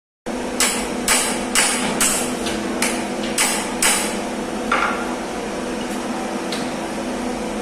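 Hammer blows, about two a second for four seconds, then three more spaced out, over a steady hum.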